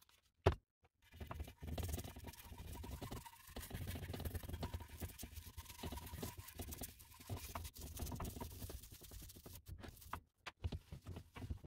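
A small stiff-bristled brush scrubbing the wet, sprayed dial face of a vintage bathroom scale: a fairly quiet, rapid scratchy back-and-forth that starts about a second in and stops near the end. A short click comes just before the scrubbing starts.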